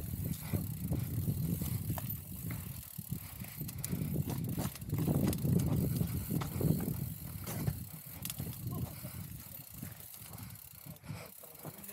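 Full-suspension mountain bike riding over a dirt trail: a steady low tyre rumble, louder for a couple of seconds midway, with many sharp clicks and rattles from the chain and frame.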